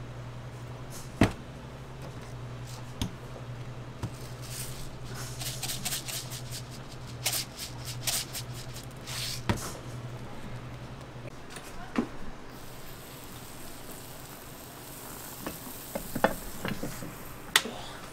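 Food-prep handling at a waffle stall: a low steady hum with scattered sharp taps and clicks, and a run of short rustling shakes a few seconds in as sprinkles go onto a whipped-cream waffle. The hum stops about two-thirds of the way through, leaving a faint hiss and a few more taps near the end.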